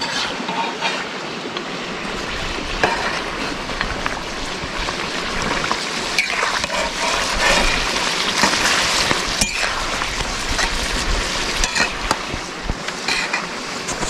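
Chicken pieces sizzling in hot oil in a karahi over a wood fire, browning toward golden, stirred and turned with a metal spatula that scrapes and clicks against the pan. The sizzle is loudest about six to ten seconds in.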